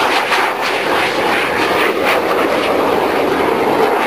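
Jet aircraft engine noise, a loud steady rush, as a single jet flies a low pass and pulls up into a climb.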